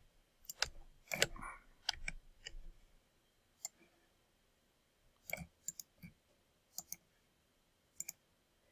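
Computer mouse buttons clicking: a dozen or so sharp, short clicks at uneven intervals, several in quick pairs like double-clicks.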